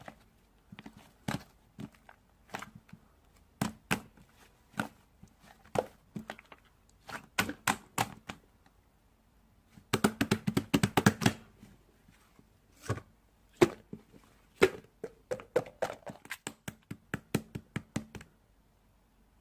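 Two-layer slime being pressed and squished by hand, giving irregular sharp pops and clicks, with a fast run of pops about ten seconds in.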